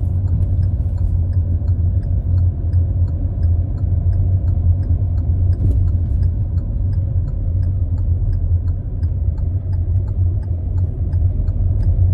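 Inside a Hyundai i20 driving slowly: steady low engine and road rumble, with an even ticking of the turn-signal indicator, about two to three ticks a second.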